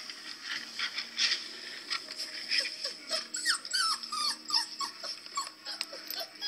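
Newborn puppies crying, played back through a laptop speaker: a quick run of short, high squeals and whimpers, many falling in pitch, thickest from about two to five seconds in.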